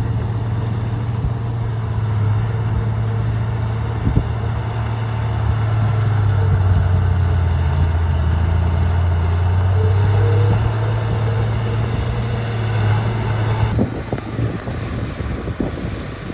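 Heavy diesel engine of a bulldozer running steadily under load, getting louder for a few seconds in the middle. The sound changes abruptly near the end, and the engine note drops back.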